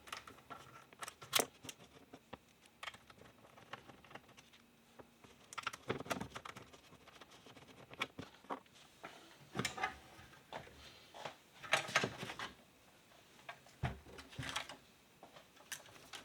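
Flathead screwdriver backing out the power-supply mounting screws at the rear of a Lenovo ThinkCentre M57 case: scattered short metal clicks and scrapes. There is a dull knock about fourteen seconds in.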